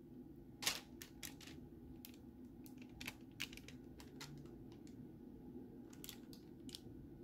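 Parchment paper in a baking tray crinkling and crackling in short, scattered clicks as it is handled and melted chocolate is poured onto it, over a low steady hum.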